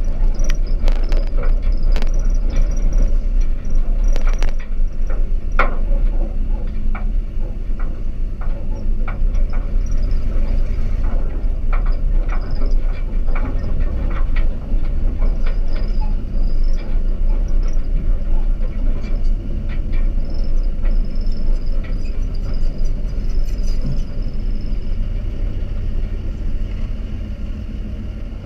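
Old dump truck driving, with a steady low engine and road rumble, and loose clunks and rattles from the loaded body, mostly in the first several seconds.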